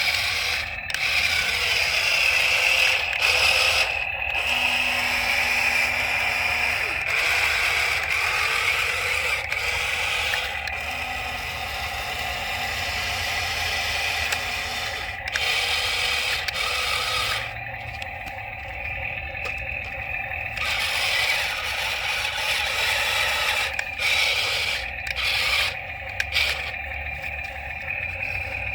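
Toy RC excavator's small electric motors and gears whirring as it is worked, starting and stopping several times, with scraping as it digs.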